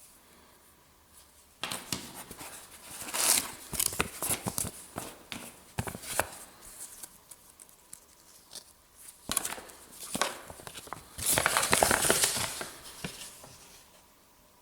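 Packaging being handled and opened by hand: crinkling and tearing with small knocks, in two spells of a few seconds each.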